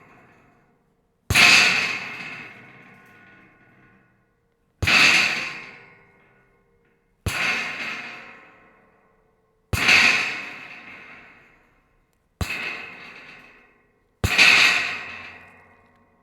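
Scrap metal rattling: six separate clatters, each starting sharply and fading away over a second or two, with silence between them.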